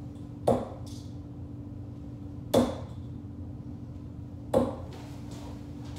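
Three steel-tip darts striking a steel-tip dartboard, one sharp thud about every two seconds, over a steady low hum.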